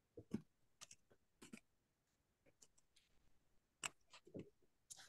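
Near silence broken by faint, irregular clicks of typing on a computer keyboard, about a dozen light taps spread over a few seconds.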